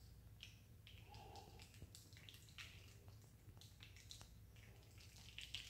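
Faint, irregular soft ticks and pats of acrylic pour paint dripping off the table edge onto plastic sheeting, over a low steady room hum.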